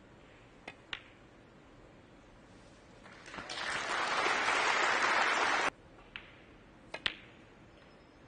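Snooker balls clicking: cue tip on cue ball and ball on ball, two sharp clicks about a second in. Audience applause then builds from about three seconds in and cuts off suddenly, followed by a few more ball clicks near the end.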